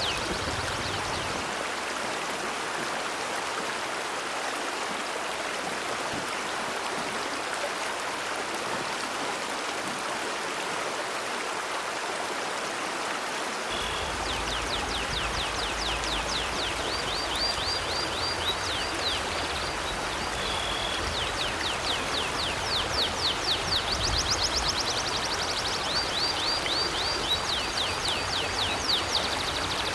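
River water flowing steadily. About halfway through, a bird starts chirping over it in a quick run of repeated high, down-slurred notes mixed with short trills.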